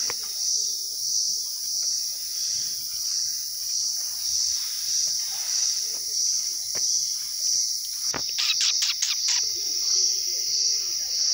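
A loud, high-pitched insect chorus that pulses steadily about twice a second. About eight seconds in, a quick run of sharp clicks is heard over it.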